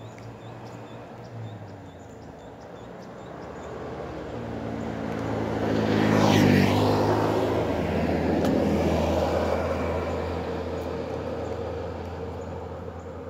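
A motor vehicle drives past, its engine and tyre noise building up, loudest about six and a half seconds in, then fading away. The engine's pitch drops as it goes by.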